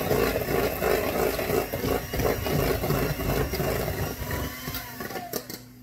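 Electric mixer running, beating a wet cookie mixture in a bowl with an uneven, pulsing churn. It stops near the end.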